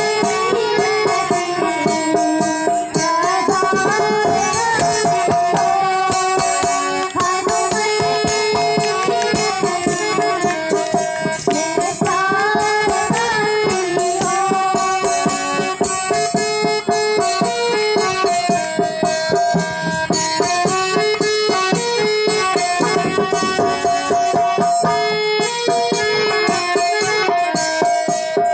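Girls' voices singing a song into microphones, with a harmonium holding sustained notes and a barrel hand drum (dholak) keeping a steady beat.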